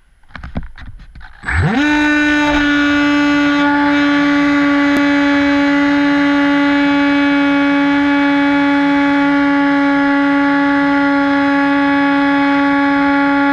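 Hobbyking Bixler glider's brushless electric motor and pusher propeller spinning up quickly about a second and a half in, then holding a loud, steady whine at one pitch. A few soft knocks come before the motor starts.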